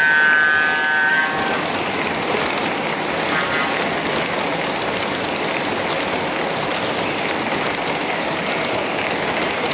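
An O-gauge model locomotive's electronic horn sounds and cuts off about a second in. After that a train of O-gauge heavyweight passenger cars rolls steadily along three-rail track, a continuous rolling rumble with fine clicking from the wheels.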